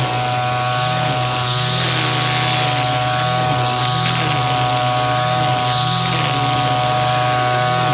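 Brush cutter (grass trimmer) engine running steadily at high speed while cutting grass, with a swish of grass being cut about once a second as the head sweeps back and forth.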